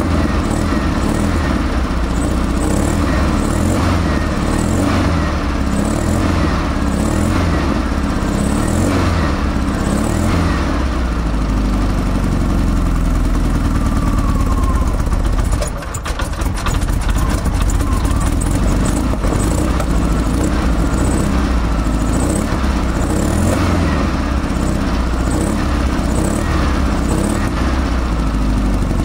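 1973 VW Beetle Baja Bug's air-cooled flat-four engine running loudly through its upswept open exhaust, cold and without a choke, so it is kept alive by working the carburettors' throttle. Its note dips and stumbles briefly about halfway through, then picks up again.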